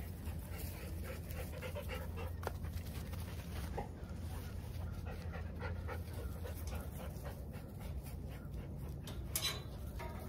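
A dog panting close by, over a steady low rumble, with one sharp click near the end.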